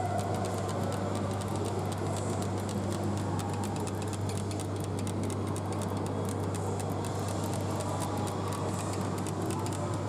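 Long acrylic fingernails tapping and scratching, a dense run of quick light clicks over a steady low hum.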